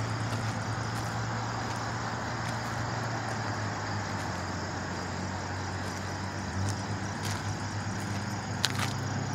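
A vehicle engine running with a steady low hum, over a steady outdoor noise.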